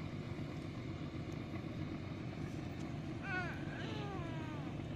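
Diesel engine of a river tug pushing a sand barge, heard across the water as a steady low drone. About three seconds in, a few high calls from an animal, each falling in pitch, cut across it.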